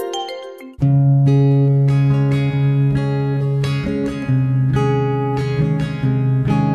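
Background instrumental music on plucked guitar, starting abruptly about a second in as the fading tail of a chiming logo jingle ends.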